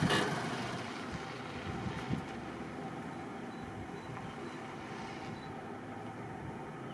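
Steady low rumble of background noise, with a brief sharp click right at the start.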